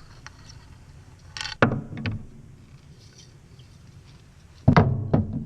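Handling noise from the dismantled antenna's element parts. A short scrape and knock come about one and a half seconds in, and a louder knock with a short rattle after it comes near the end.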